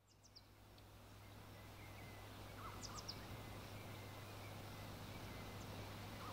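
Faint outdoor ambience: a steady low hiss and hum, growing slowly louder, with a few brief faint bird chirps about three seconds in.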